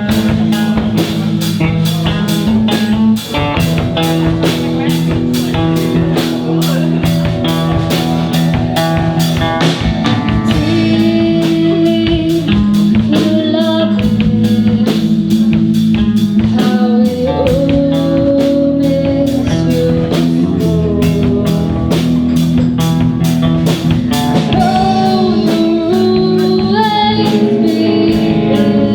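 Live band playing blues-rock: electric guitar over bass and a drum kit keeping a steady beat.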